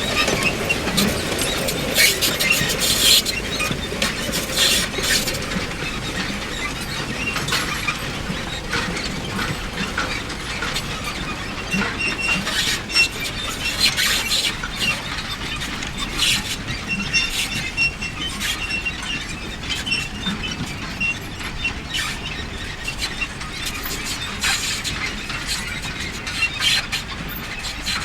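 Manure spreader running, its mechanism clattering steadily with frequent sharp clicks and repeated high squeaks.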